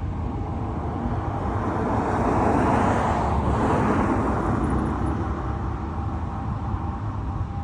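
A road vehicle passing close by: its tyre and engine noise swells to a peak about three seconds in, then fades away, over a steady low rumble.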